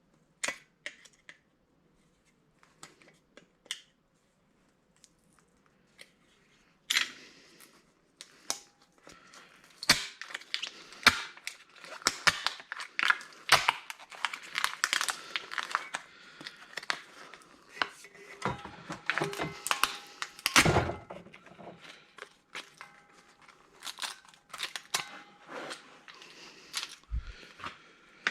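Hands dismantling a sheet-metal and plastic console: scattered light clicks at first, then, from about seven seconds in, busy clattering and scraping of loose parts with a few sharper knocks.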